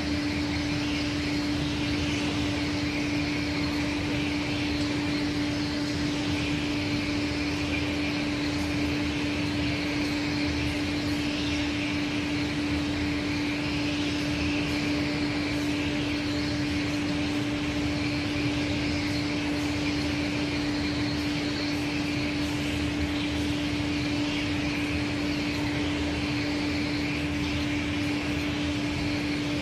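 Aschersleben SZ guideway grinding machine running, its angled grinding head working a workpiece: a steady machine hum with one constant mid-low tone, under a grinding hiss that gently rises and falls.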